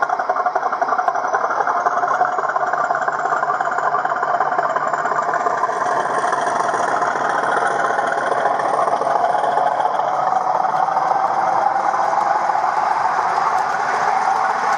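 A Hornby Class 50 model diesel locomotive's DCC sound decoder playing a Class 50 diesel engine sound as the train pulls away, running steadily through the model's small onboard speaker.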